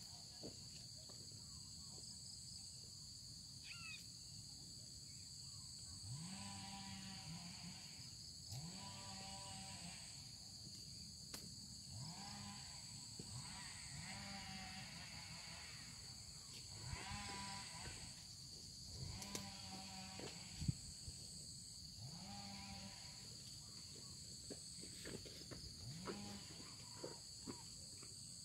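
Frogs calling: faint, low calls that swoop up and then hold, repeated every two seconds or so. Insects trill steadily and high-pitched underneath.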